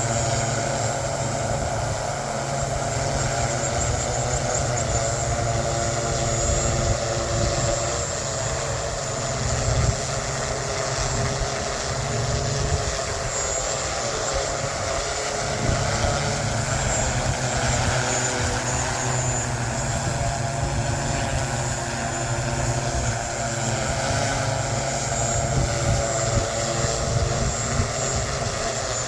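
Propellers and motors of the BBA QC1 VTOL drone humming steadily in flight, their pitch drifting a little, with wind rumbling on the microphone.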